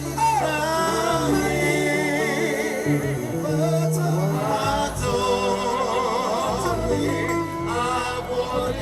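Gospel praise song: a singer's voice with vibrato over instrumental accompaniment with a moving bass line.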